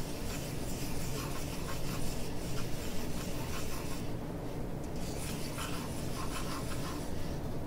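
Graphite pencil sketching on paper: light, scratchy rubbing strokes as an oval is drawn, stopping briefly about four seconds in.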